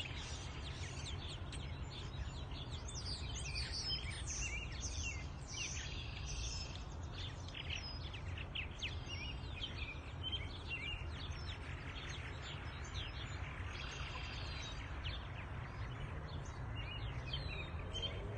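A colony of purple martins chirping, many short calls overlapping without a break, over a steady low rumble.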